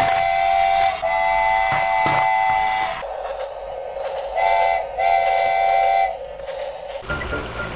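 Toy steam train's electronic whistle sounding in four blasts of a high two-note chord, two long ones, then a short one and a longer one, with a steam-like hiss between them. Music begins near the end.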